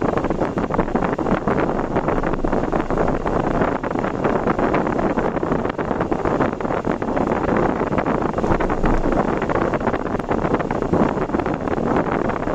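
Steady road noise of a vehicle driving, with wind buffeting the microphone in a constant rough rush.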